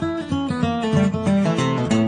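Background music played on guitar, with quickly changing picked and strummed notes.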